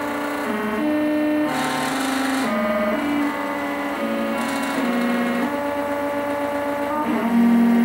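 Stepper motors of a home-built Momus CNC v2.0 router whining as they drive the axes through a G-code test program without cutting, at 30% of the set maximum speed. The pitch jumps to a new tone every half second to a second as the moves change speed and direction.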